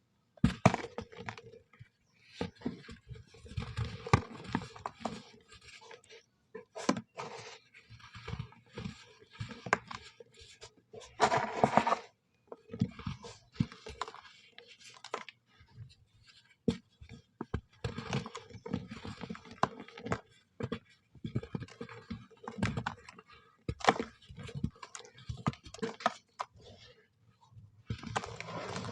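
Brown soft sand crunching and scraping as it is worked, in irregular bursts with sharp little crackles and short pauses between them.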